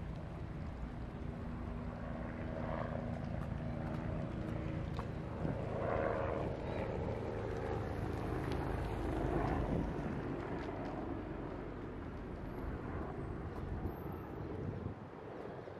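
Engine noise: a low steady hum that swells twice in the middle and eases off near the end.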